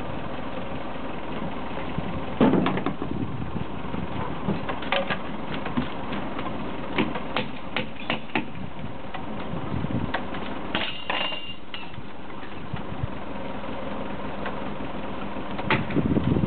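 Log-building site sounds: a steady engine running in the background, with scattered sharp knocks and taps of wood and tools while a log is set on the wall. A short high squeal sounds about eleven seconds in.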